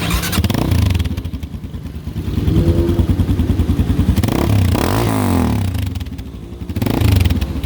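Supergato XRF250 motorcycle engine revved several times through its modified exhaust with the silencer fitted, dropping back toward idle between the blips.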